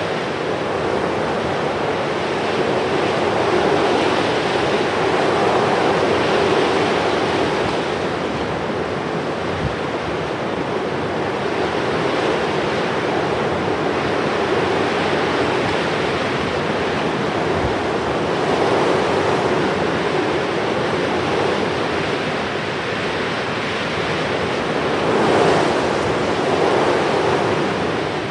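Continuous rushing of sea waves, swelling and easing every few seconds.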